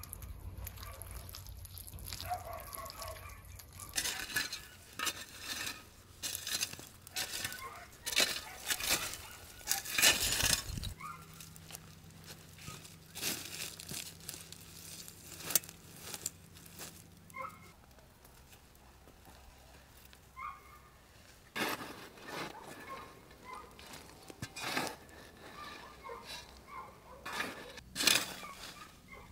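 A string of short handling sounds from clay-baking meat in a fire pit: wet clay patted and smoothed by hand, a wire basket set down on hot coals, and a spade cutting into loose soil and dropping it, the sharpest spade strike just before the end.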